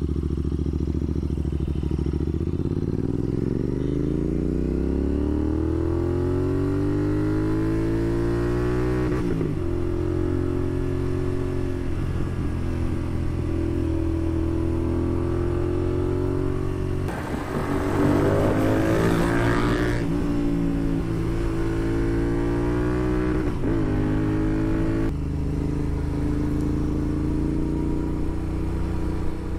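Royal Enfield Continental GT 650's parallel-twin engine running through a Red Rooster Performance slip-on exhaust under way. The revs climb steadily as it accelerates over the first several seconds, then a gear change comes about nine seconds in, followed by steadier cruising revs. A louder, rougher stretch comes around the middle, and there is another shift in revs later on.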